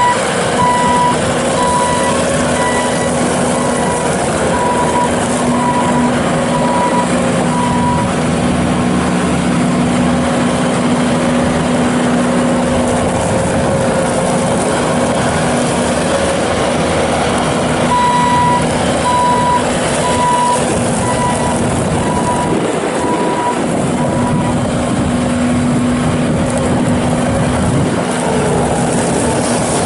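Bobcat S750 skid steer loader's diesel engine running steadily as the machine is driven about. Its backup alarm beeps at an even pace for the first several seconds and again in a shorter spell past the middle, as it reverses.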